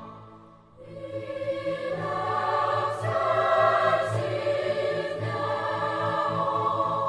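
Background music of a choir singing sustained, slowly changing chords, swelling in about a second in.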